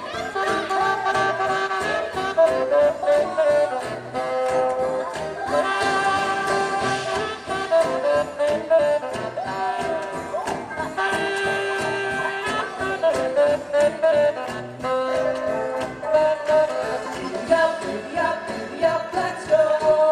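Music playing: sustained melody notes over a steady beat.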